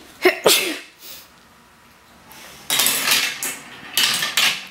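A woman sneezes once, a loud "ah-choo" with a falling voice, just after the start. A couple of seconds later come several short, hissy noises.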